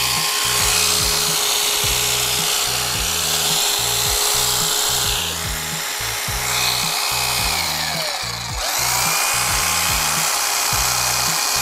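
Electric hedge trimmer running with a steady whine; about eight seconds in it winds down and spins back up. Background music with a steady beat plays throughout.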